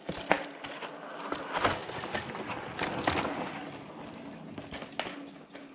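Mountain bike rolling along a dirt trail: tyres crunching over the dry ground, with several sharp knocks and rattles as the bike goes over bumps.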